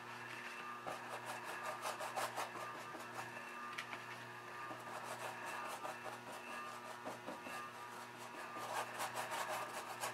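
Paintbrush rubbing acrylic paint onto a sand-textured canvas: clusters of short, scratchy strokes near the start and again near the end, over a steady low hum.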